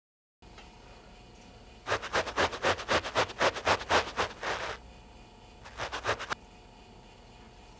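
Carpet being scratched in quick rhythmic strokes, about five a second, for nearly three seconds, then a shorter run of scratches a second later: a foley stand-in for someone scratching an itch.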